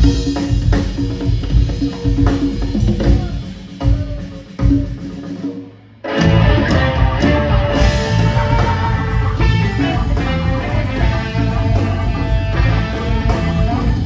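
Live rock band playing: electric guitars, bass, drum kit and congas. About four seconds in the music thins out and nearly drops away, then the full band comes back in sharply about six seconds in, with electric guitar lead lines over the drums.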